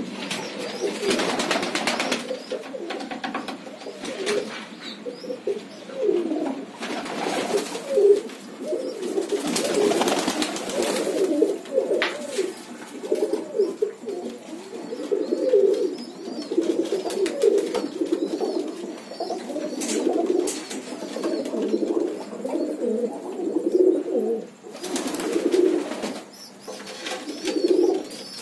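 Several domestic pigeons cooing in a small room, their low, rolling coos overlapping and repeating without a break.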